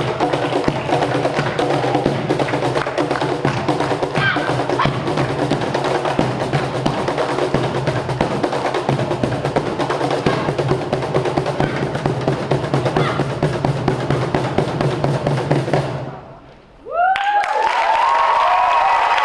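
Music with the quick clatter of tap shoes runs until about 16 seconds in, then stops. After a brief hush, the audience breaks into applause and cheering near the end.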